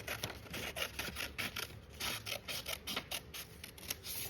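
Cardboard and paper handled at close range: a quick, irregular run of small scratches and clicks.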